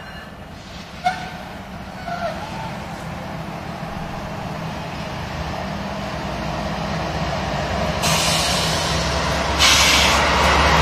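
A Norfolk Southern GE ES44DC diesel-electric locomotive approaching at the head of a rail train, its engine drone growing steadily louder until it passes close near the end, with rushing wheel and rail noise. Two brief high squeaks sound about one and two seconds in.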